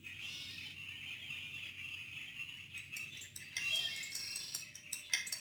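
Faint high-pitched chirping ambience, then a light rhythmic percussion, like a tambourine, starts up near the end.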